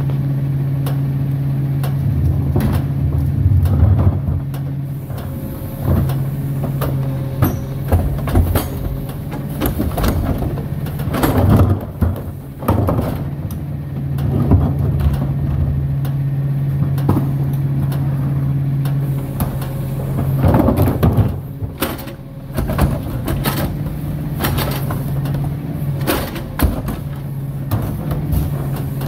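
Rear-loading garbage truck's diesel engine idling steadily, with repeated clanks, bangs and clatter as trash carts are tipped into the hopper by hand and by the truck's hydraulic cart tipper.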